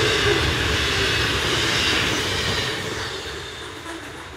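Container wagons of a long freight train rolling past, a steady rumbling rush of wheels on rail that fades away from about two seconds in as the train recedes.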